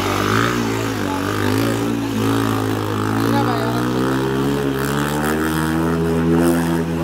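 Bajaj Pulsar 220F motorcycle's single-cylinder engine running steadily in deep floodwater, its pitch rising about five seconds in as it is revved. Rushing floodwater sounds under it.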